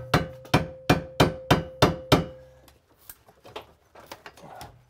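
Hammer blows on the metal housing of a bathroom exhaust fan, knocking it loose from the ceiling joist it is nailed to. About eight quick strikes come in the first two seconds, about three a second, with the sheet metal ringing under them. Lighter knocks and clatter follow.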